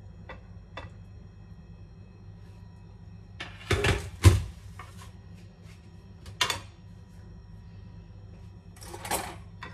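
Light clinks and scrapes of a spatula serving roasted vegetables from a foil-lined metal baking tray, with a loud clatter about four seconds in as the tray is set down on the counter. A single knock and a short rattle of foil and metal follow later.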